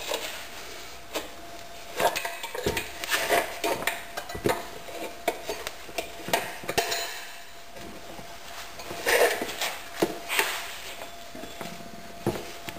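Screwdrivers used as tire levers clinking, knocking and scraping against the metal wheel rim in irregular bursts while the rear tire is pried off the rim.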